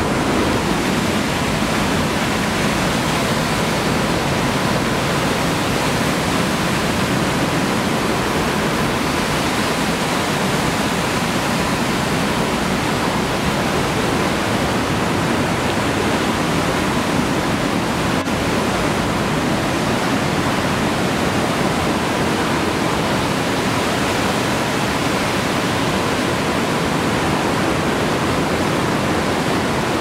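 Waterfall and the torrent below it in a narrow rock gorge, a loud, even, unbroken rush of falling water.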